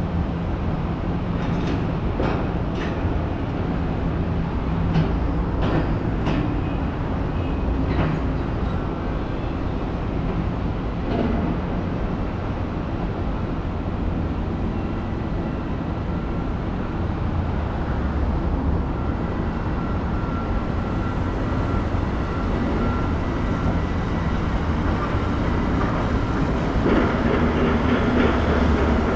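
Steady low rumble of motor vehicles, with a few sharp clicks in the first eight seconds and a steady whine coming in about two-thirds through; the rumble swells near the end.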